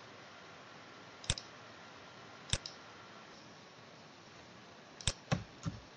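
Several sharp computer mouse clicks, some in quick pairs, over a faint steady background hiss.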